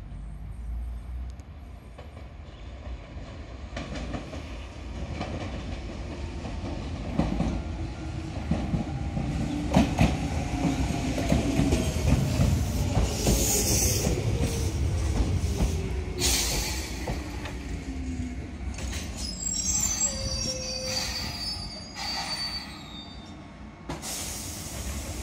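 Enshu Railway 1000-series electric train (unit 1001F) pulling into a station: the wheels click over rail joints as it passes, and a whine falls steadily in pitch as it slows. High brake squeal sounds as it comes to a stop near the end.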